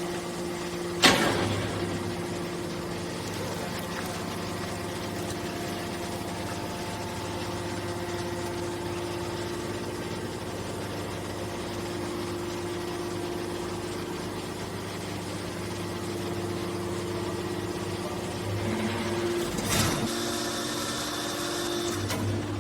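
Hydraulic can baler running, its pump motor giving a steady hum. There is a sharp bang about a second in, and near the end the hum changes pitch with a brief rush of noise.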